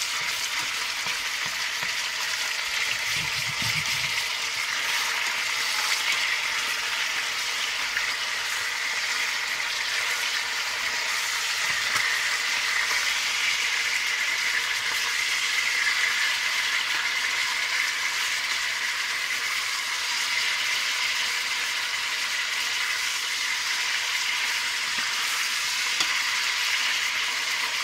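Pieces of pork tenderloin sizzling steadily in hot oil in a stainless steel pot as they are browned, stirred with a spatula that now and then clicks against the pot.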